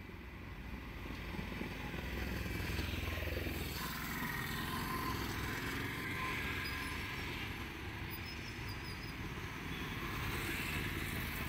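Roadside traffic running steadily, with motorbikes and cars passing.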